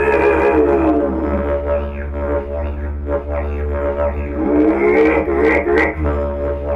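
Didgeridoo played solo: a continuous low drone with overtones that sweep up and down as the player reshapes his mouth, swelling brighter near the start and again about five seconds in.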